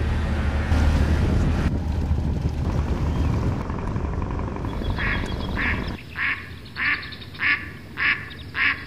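Music with a steady bass line that stops about six seconds in, then a duck quacking in a regular series of about seven quacks, roughly one every half second.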